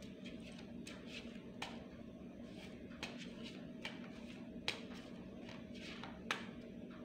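A deck of tarot cards being shuffled by hand: soft flicks and snaps of cards at irregular intervals, with two sharper snaps in the second half, over a steady low hum.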